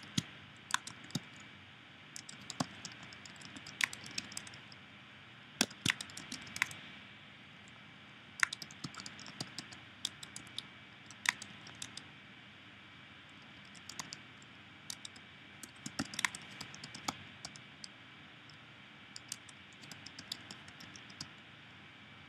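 Typing on a computer keyboard: irregular runs of sharp key clicks with short pauses between words and phrases, over a faint steady background hiss.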